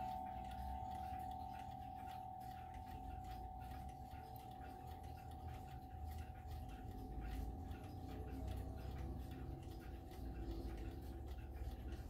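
Howard Miller triple-chime mantel clock: the last notes of its chime rods ring out and fade away in the first few seconds, over the steady ticking of its mechanical movement.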